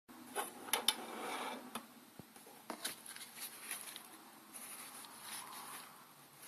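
Packaging being handled: rustling and crinkling, with several sharp clicks in the first three seconds.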